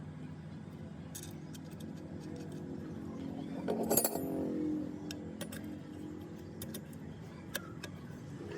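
Metal parts clinking and knocking against each other, with one louder ringing metallic clank about four seconds in, over a steady low hum.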